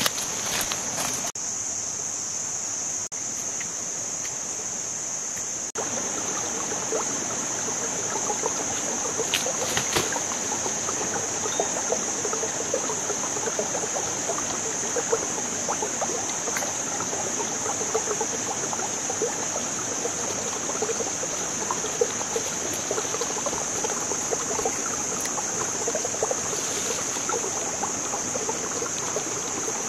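Steady high-pitched insect drone over irregular crackling and rustling of dry leaves and twigs underfoot, which gets busier about six seconds in.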